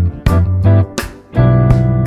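Background instrumental music: plucked guitar-like notes over sustained low bass notes, dropping out briefly about a second in before picking up again.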